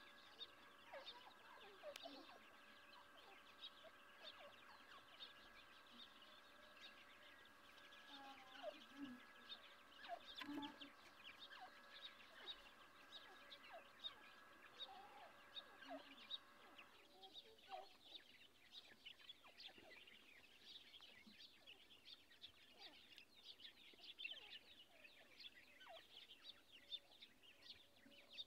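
Grey francolin chicks peeping faintly, a rapid, continuous run of short high cheeps, with a few lower calls among them. A faint steady drone in the background cuts off about two-thirds of the way through.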